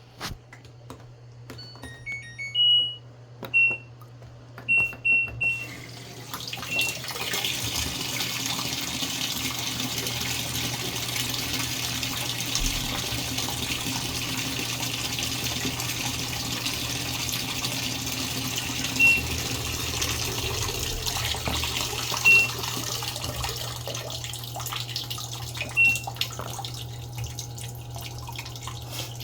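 Washing machine control panel beeping several times as buttons are pressed, then water rushing steadily into the machine as it fills, with a single beep now and then. A low steady hum runs underneath.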